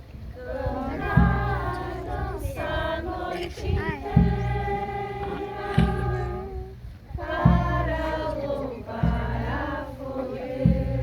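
A group of voices singing a song together in unison, with low thumps about every one and a half to two seconds.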